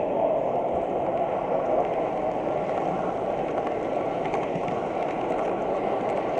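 Steady running noise of a model train heard from a camera riding on it: wheels rolling on the rails and the locomotive's motor and gearing.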